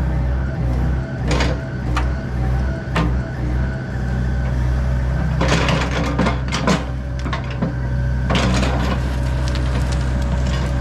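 John Deere 85G excavator's diesel engine working steadily under load with a hydraulic whine, as the machine pries a large oak stump loose. Sharp cracks and clanks come in several bunches, loudest in the middle.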